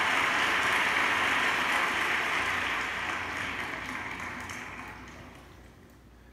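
Crowd applause, a dense even clapping that fades out over the last few seconds.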